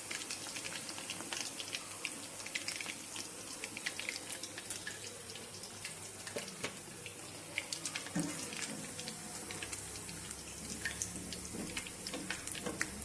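Chicken pakoras deep-frying in hot oil in a karahi, a steady sizzle with scattered crackling pops, the pakoras browned and done.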